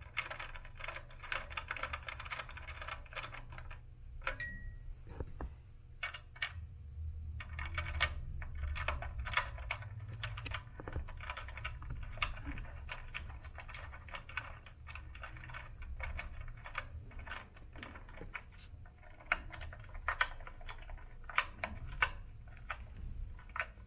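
Hand tools clicking and clinking on metal while the belt-tension adjusting screws of an elliptical trainer's crank are tightened, in runs of quick clicks with short pauses between.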